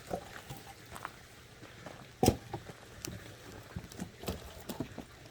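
Scattered light knocks and clicks, with one sharper knock a little over two seconds in.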